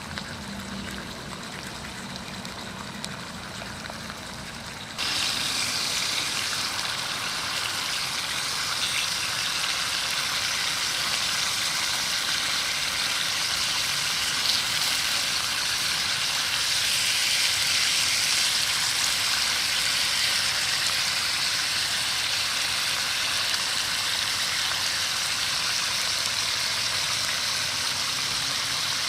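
Lamb sizzling steadily on a grill pan over the fire pit, much louder from about five seconds in.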